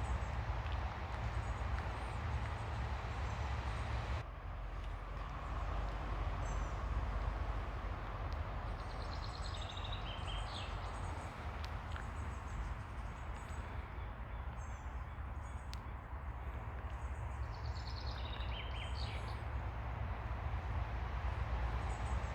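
Steady wash of ocean surf with a low rumble underneath. Birds chirp in two short bursts of high calls, about nine seconds in and again near nineteen seconds.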